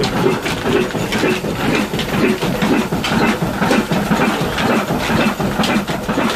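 Old single-cylinder stationary diesel engine with a large flywheel, running steadily with an even, clattering chug.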